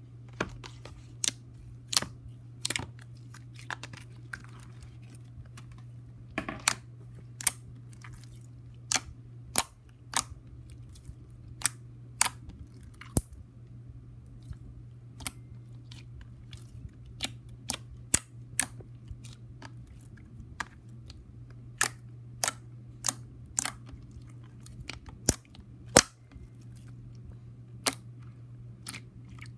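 Slime being handled, poked and squished by hand, making sharp irregular clicks and pops about one or two a second. A steady low hum runs underneath.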